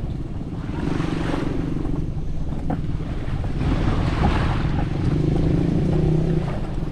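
A steady engine drone that grows a little louder about four seconds in, over wind and the wash of waves.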